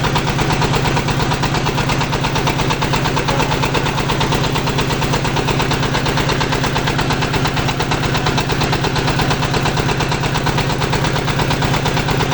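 Diesel engine of a portable water-well drilling rig (22 HP) running steadily under a continuous, rapid, even knocking beat.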